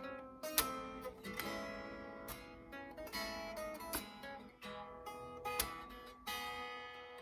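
Solo acoustic guitar played fingerstyle: plucked melody notes over a bass line, with occasional strummed chords.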